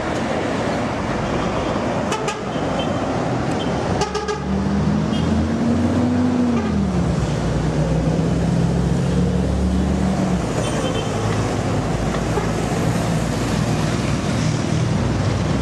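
Busy city street traffic: steady roadway noise with a few short car-horn toots a couple of seconds in and again about four seconds in. Then a vehicle engine drones for several seconds, its pitch rising and then dropping as it pulls through the intersection.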